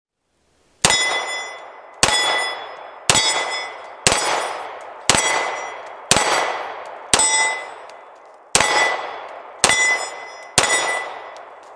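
Ten shots from a Bersa TPR9 9mm pistol, about one a second with a slightly longer pause before the last three, each met by the ring of the steel plate targets being hit.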